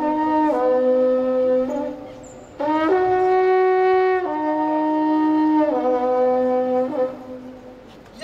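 Trombita, the long wooden highlander horn, blowing a call in two phrases of long held notes that step between a few pitches, with a short break about two seconds in; the horn stops about a second before the end.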